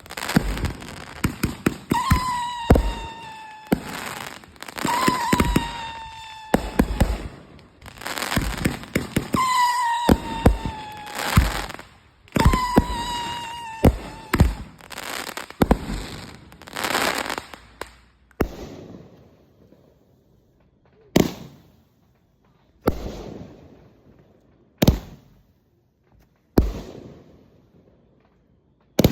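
Consumer fireworks going off: for the first two-thirds a rapid run of crackling bangs mixed with whistling tones that fall slightly in pitch, a new whistle every second or two. Then single loud bangs, each echoing, about two seconds apart.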